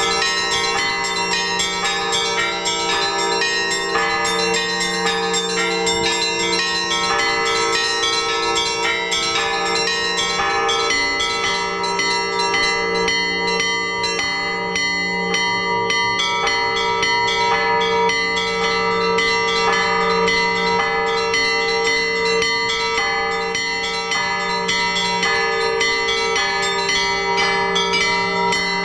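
Orthodox church bells rung by hand, many at once: small bells struck in a quick, continuous stream over the long, steady ring of larger bells.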